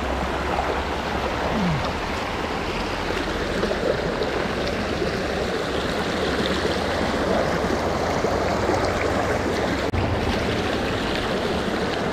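Shallow creek water rushing steadily over rocks in a riffle.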